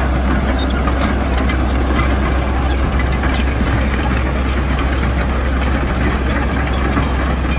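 Caterpillar E120B excavator's diesel engine running steadily as the machine travels on its steel tracks, with faint clatter from the tracks.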